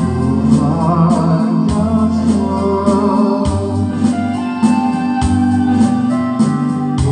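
Instrumental song intro: organ-toned electronic keyboard chords over a bass line and a steady drum beat.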